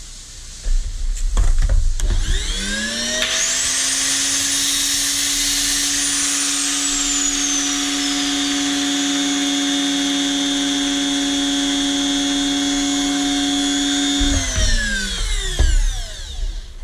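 Small handheld electric power tool motor spinning up about two seconds in, running at a steady speed with a hum and a high whine for about eleven seconds, then winding down and stopping near the end. A few handling knocks come before it starts.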